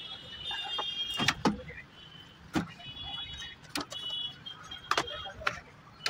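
Sharp plastic and metal clicks and knocks, about half a dozen at irregular intervals, as a microwave's keypad and control-board housing is worked loose and pulled out. A high chirping comes and goes between the knocks.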